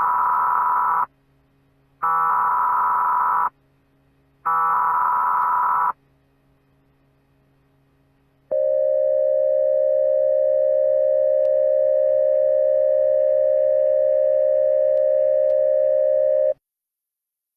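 Emergency Alert System style alert signal. It is three short bursts of buzzing data header tones, each about a second and a half with a gap between them, followed by a steady electronic attention tone that holds for about eight seconds and cuts off suddenly.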